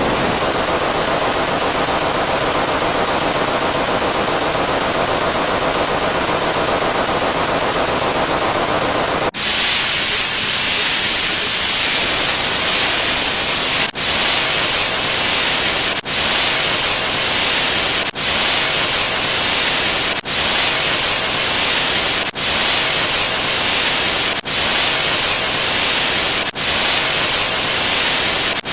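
Loud static sound effect: a steady hiss with no tone in it. About nine seconds in it switches to a brighter, hissier static that cuts out for an instant about every two seconds.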